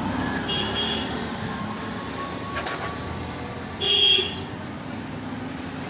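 Steady street traffic noise, with a short vehicle horn beep about four seconds in and a fainter, shorter beep about half a second in.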